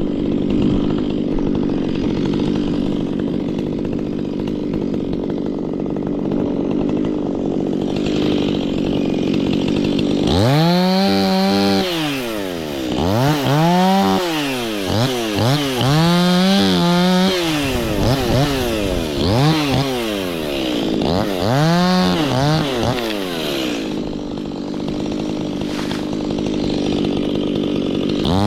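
Stihl two-stroke chainsaw running steadily for about ten seconds, then revved up and down repeatedly, engine speed rising and falling several times, before settling back to a steady run near the end.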